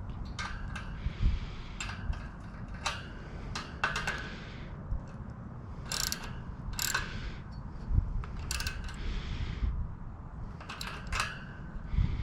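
Hand tools working the mounting bolts of a Wald 535 rear bicycle basket: short metallic clicks and rasps that come in uneven bursts, about a dozen in all.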